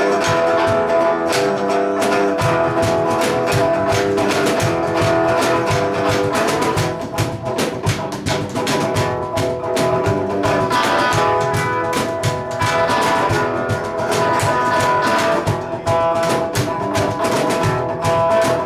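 Band playing an instrumental rockabilly passage: a hollow-body electric guitar strummed through an amp over a fast, steady percussive beat.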